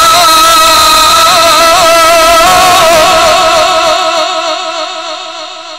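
A male Quran reciter holding one long, melismatic note in mujawwad-style recitation, with small ornamental wavers and a slight change of pitch about halfway through. The voice then fades away near the end.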